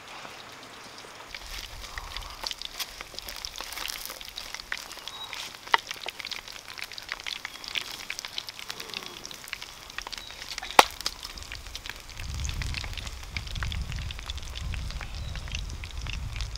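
Wood fire crackling, with scattered sharp pops and one loud snap about 11 seconds in. A low rumble comes in at about 12 seconds.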